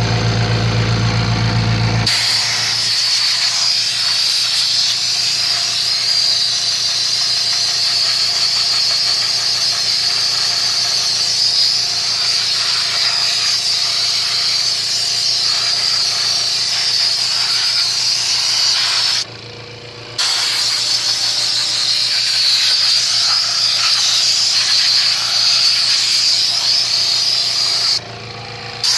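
A low hum for the first two seconds, then a steady, loud hiss of pressurised gas escaping in the engine bay. The hiss cuts out briefly twice, about two-thirds of the way through and again near the end.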